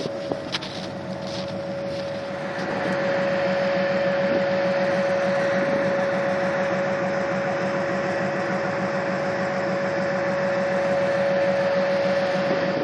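Iced-over locomotive's engine running: a steady drone with a pulsing low hum and a held whine on top, growing louder about two and a half seconds in.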